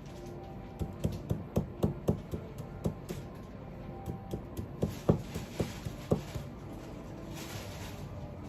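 Kitchen knife chopping negi (Japanese green onion) on a cutting board: a string of sharp cuts at an irregular pace, thinning out near the end, with faint background music.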